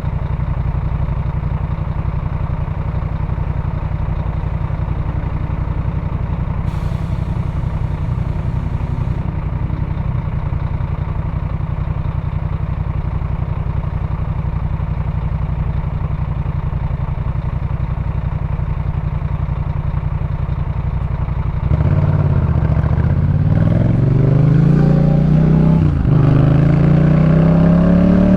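Yamaha MT-07's 689 cc parallel-twin engine through a Jeskap K4 full exhaust, idling steadily. About 22 seconds in, it pulls away and revs up, with a gear change about four seconds later, after which it climbs again.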